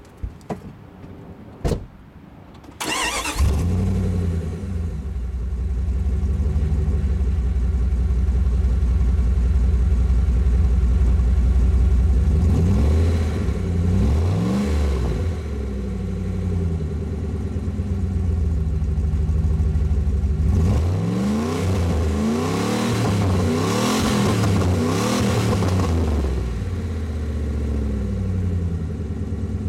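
Jeep Grand Cherokee ZJ V8 starting about three seconds in, exhaust through a glasspack muffler with the pipe ending ahead of the rear axle. It idles, is blipped a few times around the middle, and later revved several times in a row before settling back to idle.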